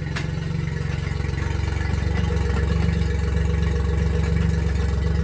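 Yamaha four-stroke outboard motor running steadily, a little louder from about two seconds in, with a sharp click early on. The lower unit is still clicking even on fresh gear oil, so the oil change has not cured the fault.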